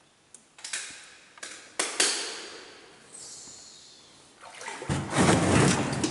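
A boat paddle splashing in the water. There are several sharp splashes in the first two seconds, then a longer, louder rush of sloshing water near the end as the boat comes up to the bank.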